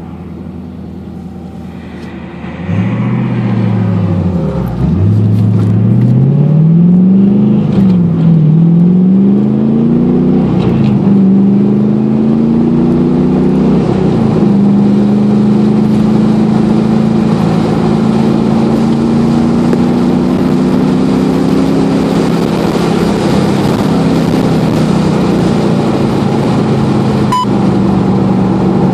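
LS1 V8 engine of a 1993 Mazda RX-7, heard from inside the car on track. After a quieter lift off the throttle it accelerates hard, its pitch climbing and dropping at several gear shifts in the first fifteen seconds. It then climbs slowly in a high gear down a straight and holds a steady note near the end, with tyre and wind noise beneath.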